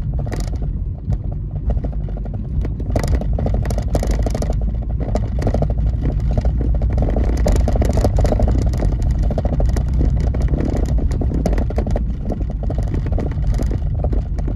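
Car driving along a rough street, heard from inside the cabin: a steady low engine and road rumble with frequent rattles and knocks.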